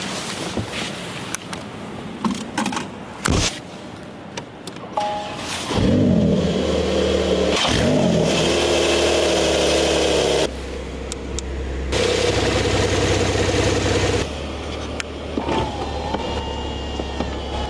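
Porsche 911 Carrera 4S flat-six engine starting about six seconds in, flaring up in revs and settling. It gives a second short blip of revs, then idles steadily and changes level a few times. A few clicks and knocks come before the start.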